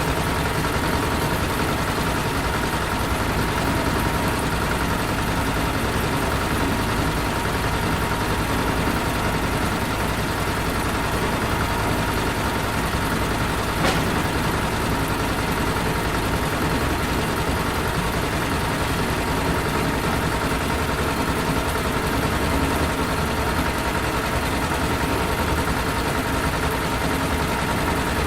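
Huge factory engine running steadily, a dense unchanging noise with a faint steady high tone through it; one short click about halfway through.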